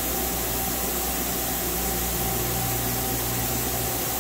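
Nakamura-Tome WT-300 CNC turning/milling center running with a steady mechanical hum and hiss as its upper turret is jogged along the Y axis. A lower drone comes in about two seconds in and drops out near the end.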